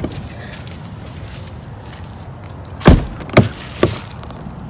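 Car door being unlatched and pushed open: three sharp clunks about half a second apart, the first the loudest, over a low steady rumble.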